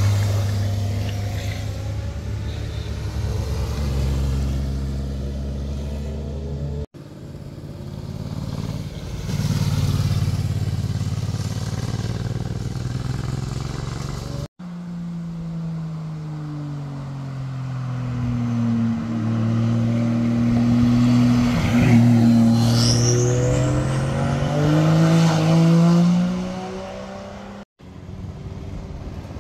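Motorcycle engines as bikes ride one after another through a tight hairpin bend, in short sections that end in abrupt cuts. In the longest section the engine note falls as the bike slows into the bend, then rises as it accelerates out, loudest about two-thirds of the way through.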